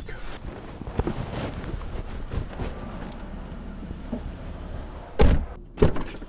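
A car door shut with a heavy thunk about five seconds in, heard from inside the car, followed moments later by a second, shorter knock.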